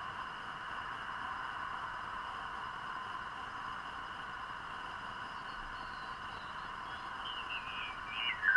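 Homebrew SSB receiver's audio hissing with band noise while tuned between stations, a thin mid-pitched hiss with faint steady high whines. Near the end a whistle slides down in pitch as the tuning sweeps across a signal.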